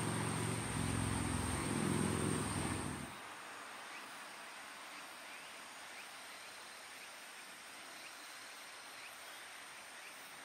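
Outdoor ambience: a low engine drone with a thin steady insect buzz over it, both stopping abruptly about three seconds in. Quieter ambience follows, with faint short insect chirps repeating.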